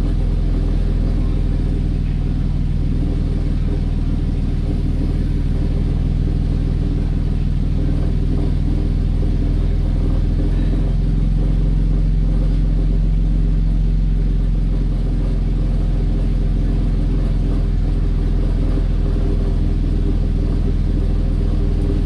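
2009 Toyota Camry's 3.5-litre 2GR-FE V6 running steadily, heard from inside the cabin. The engine is misfiring, with stored codes for a cylinder 1 misfire and random multiple misfires; diesel in the tank is suspected.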